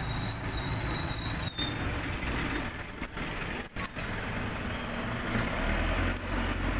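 Outdoor road traffic: a steady wash of passing vehicles with a low engine rumble that swells near the end, and a thin high whine for the first couple of seconds.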